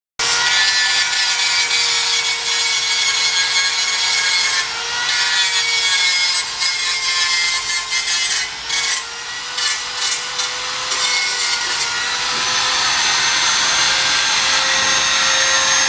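Electric angle grinder grinding down the weld beads on a threshing machine's sheet-steel cover, a steady motor whine under a harsh grinding hiss. It leaves the metal briefly about five seconds in and several times around nine to eleven seconds. From about twelve seconds it runs free off the work, its whine steady and slightly higher.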